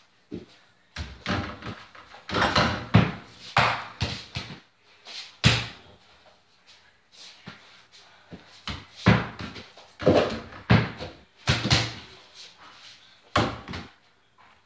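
Mini basketball hitting an over-the-door hoop and the wooden door it hangs on: a string of sharp knocks and thuds, some in quick clusters with a short rattle after them.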